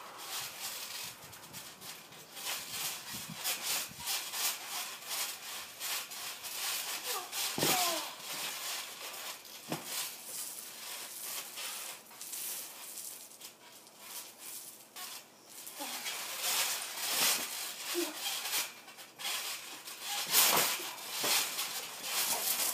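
Boys wrestling on a trampoline: irregular rustling, scuffing and thumping of bodies on the mat, with a couple of short vocal sounds about a third of the way in and again later.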